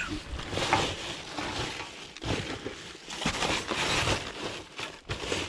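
Trash being rummaged through in a dumpster: irregular rustling and crinkling of bags and packaging in uneven bursts.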